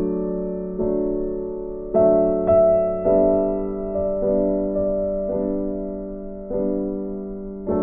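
Soft, slow background piano music: chords struck every second or so, each one ringing and fading.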